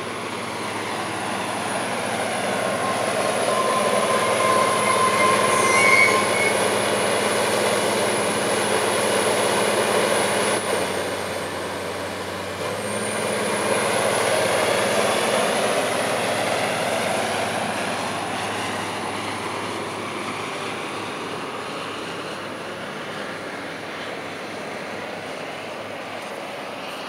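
SBB Cargo shunting locomotive rolling past on the rails, its engine running and wheels on the track, with short squealing tones a few seconds in. It is loudest about 14 seconds in as it passes, then fades away.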